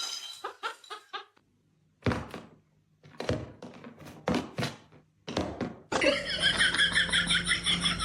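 A series of knocks and thuds, then music starts about six seconds in.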